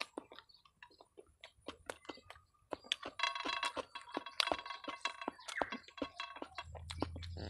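Fingers scraping and tapping on a ceramic plate while gathering rice by hand, a quick run of small clicks and ticks, with soft chewing mouth sounds in between.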